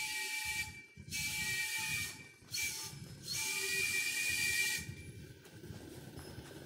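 Steam whistle of a 1½-inch-scale live steam locomotive, Chicago Great Western 319, blowing the grade-crossing signal: two long blasts, a short one and a final long one, a hissy chord of a few notes. A low rumble of the train on the track stays under it.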